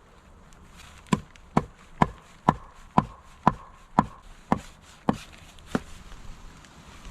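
A tool striking wood about ten times at roughly two blows a second, each blow sharp with a brief ring. The blows start about a second in and stop near six seconds.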